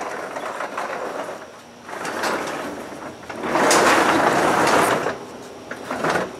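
Homemade cedar sectional garage door being pulled down by hand, its rollers rumbling along the metal tracks, in uneven swells that are loudest about two-thirds of the way through.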